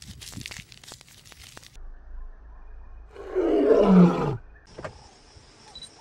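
A few crackly clicks, then one loud, rough animal call about three seconds in, roughly a second long and falling in pitch, like a large animal's roar.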